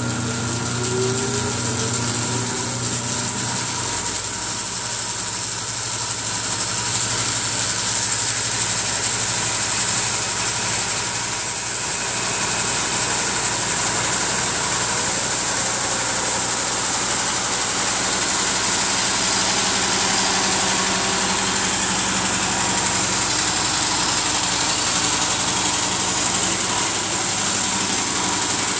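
Yates Y30 bandsaw running and resawing a narrow walnut board. A steady cutting noise builds over the first few seconds as the low motor hum gives way, then holds even, with a high whine throughout.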